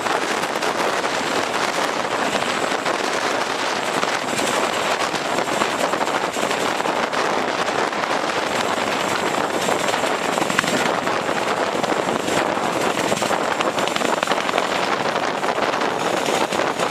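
CH-47 Chinook tandem-rotor helicopter running at close range as it touches down and sits on the runway with both rotors turning: a steady, dense rushing roar full of crackle, with a thin high whine from its twin turbine engines.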